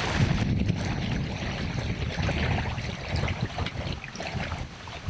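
River water running and trickling around a kayak, with wind buffeting the microphone in uneven low gusts.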